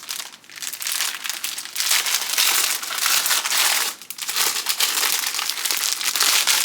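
Thin plastic packaging crinkling as it is handled and unwrapped, with a short lull about four seconds in.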